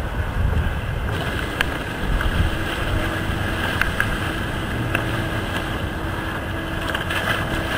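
Wind buffeting the microphone, with water sloshing and splashing close by. A faint steady hum runs through the middle of it.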